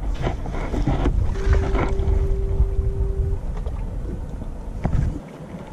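Wind rumbling on the microphone over water sloshing against the side of a boat, with a few short splashes. A steady tone is held for about two seconds a little after the start.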